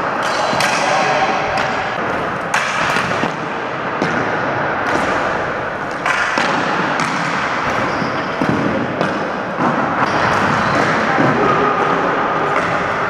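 Ball hockey play on a gym floor: a stream of sharp clacks and knocks from sticks hitting the ball, the floor and one another, with thumps from the ball and goalie pads, echoing around the hall.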